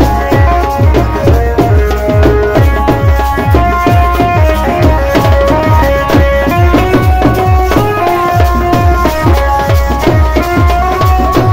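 Loud dance music with a steady drum beat and a melody line over it.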